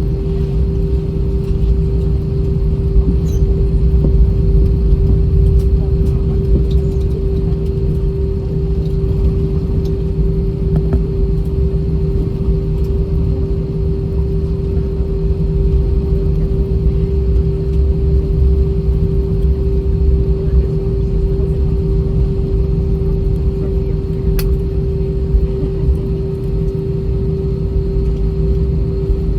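Steady cabin drone of an Airbus A320-232 taxiing on its IAE V2500 engines at idle: a low rumble with a steady hum tone.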